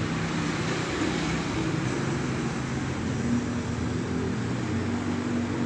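A motor vehicle's engine running, a steady hum whose pitch shifts about halfway through.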